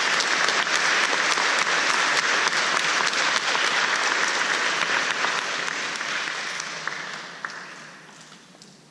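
Audience clapping steadily for a graduate, dying away over the last few seconds.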